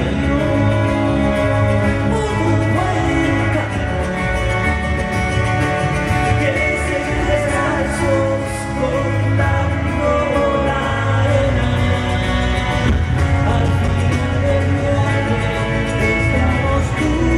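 A rock band playing an instrumental stretch of a song, with guitars over a steady bass line.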